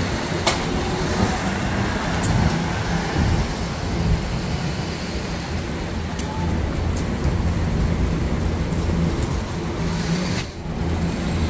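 Steady road traffic noise with a low engine hum from passing vehicles, dipping briefly near the end.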